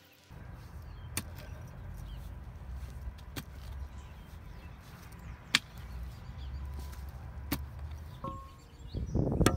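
Mattock blade striking into soil and roots around a tree stump: four sharp hits about two seconds apart, then a louder flurry of blows near the end, over a steady low rumble.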